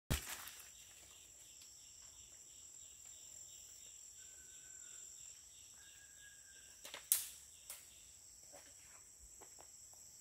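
Tropical forest insect chorus: a steady high buzz with a pulsing trill about four times a second. A sharp knock comes right at the start, and another loud click or snap about seven seconds in.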